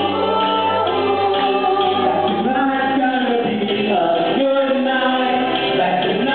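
Music with a group of voices singing.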